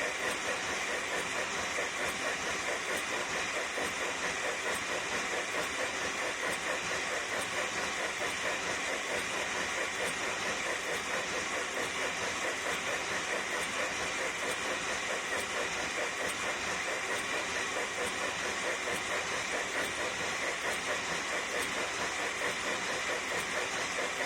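USA Trains FEF-3 G-scale model steam locomotive running steadily, its mechanism giving an even, unbroken running sound with a fine, regular pulsing.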